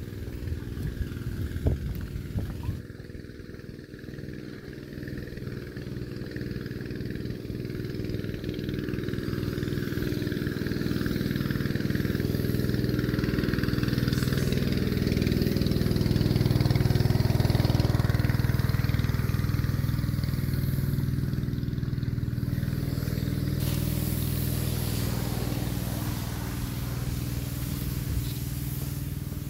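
A motor engine running at an even pitch, growing louder to a peak about halfway through and then slowly fading.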